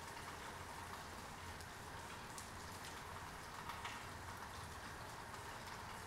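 Heavy rain falling steadily: a dense, even hiss with scattered sharper ticks of single drops striking close by.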